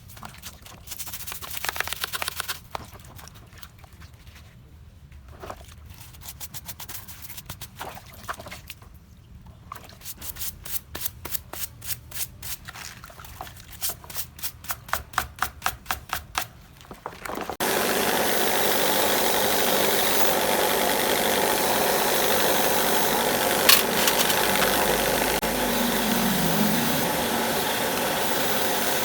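Scattered clicks, then a run of quick rubbing strokes, two to three a second. About 18 seconds in, a small electric motor starts suddenly and runs steadily.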